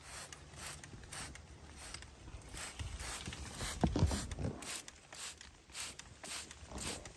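Hand trigger sprayer squirting liquid onto coffee berry clusters in short hissing bursts, about two a second. A louder low bump comes about four seconds in.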